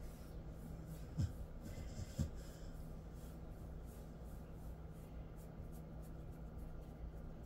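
Fingers rubbing and kneading through a Jindo dog's fur during a massage, a soft repeated scratchy rustle, with two brief low thumps about a second and two seconds in.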